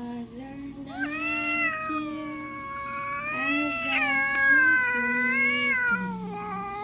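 Orange tabby cat yowling in long, drawn-out calls that waver in pitch, the first starting about a second in and a second following straight after it.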